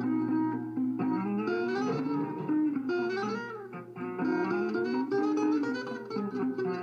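A solo guitar playing a melodic line of plucked notes that run up and down, over a held low note.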